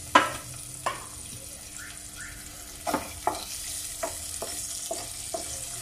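Onion chunks sizzling in hot oil in a nonstick pan while a spatula stirs them. The spatula knocks against the pan many times, sharpest just after the start.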